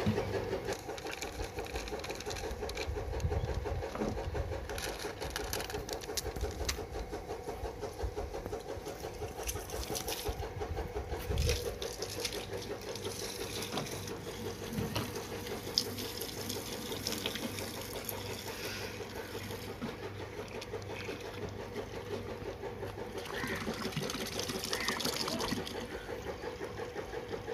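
Water from a hose pouring into a plastic bucket, filling it with washing-powder solution, over a steady mechanical hum with a fast, even pulse.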